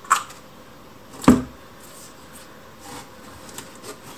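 Handling clicks and knocks as a metal car suspension control arm is turned over in the hands, with one louder thump about a second in.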